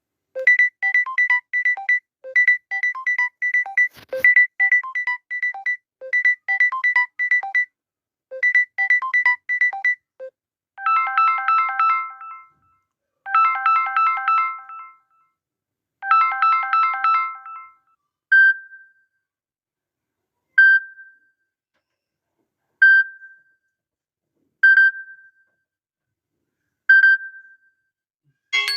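Mobile phone ringtones played one after another. First comes a short electronic melody repeating about every one and a half seconds, then three bursts of rapid bell-like repeated notes, then a single short beep repeating about every two seconds.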